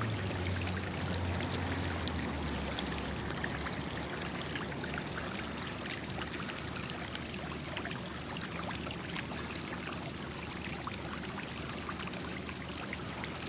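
Water from a leaking underground water main running steadily across the street.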